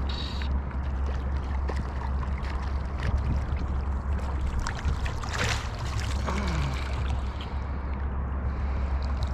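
Water splashing and trickling as a hooked trout thrashes at the surface and is brought in, with scattered small splashes and one brighter splash about five and a half seconds in, over a steady low rumble.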